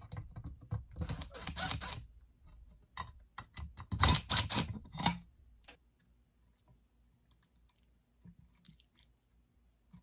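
Cordless driver running in two short bursts, about a second or so each with the second louder, backing the screws out of a steel junction-box cover, with a clattering of rapid clicks. Then only a few faint clicks as the cover is handled.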